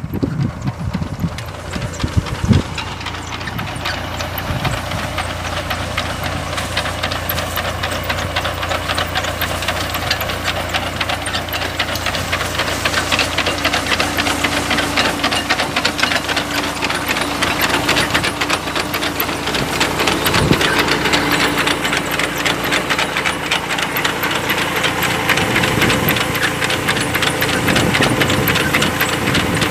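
Tractor engine running steadily as it pulls a potato harvester, over a fast, even mechanical clatter, with a couple of louder knocks about two seconds in.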